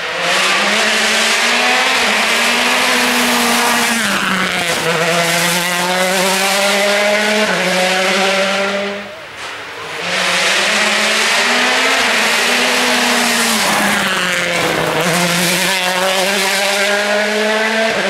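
Hyundai i20 WRC rally car's turbocharged four-cylinder engine at high revs, pitch holding steady then stepping down and climbing again at each gear change. It is heard twice, with a brief drop in level about nine seconds in between the two runs.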